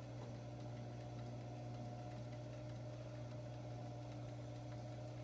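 Electric pottery wheel motor running at a steady speed with a low, even hum.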